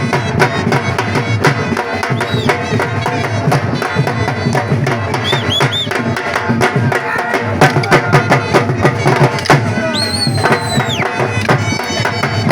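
Traditional music driven by fast, dense drumming, with a high held note lasting about a second, about ten seconds in.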